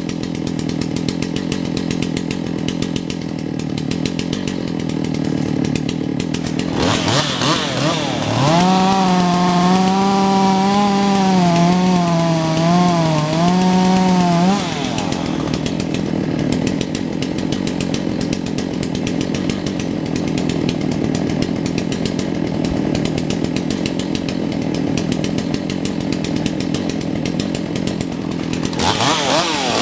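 Two-stroke chainsaw idling, then revved up about seven seconds in and held at high revs for about six seconds, its pitch wavering and dipping as it cuts into the oak, before dropping back to idle. It revs up again near the end.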